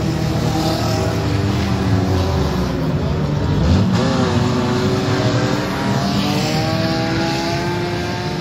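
Several banger race cars' engines running and revving together, their pitch climbing over the last few seconds as they accelerate.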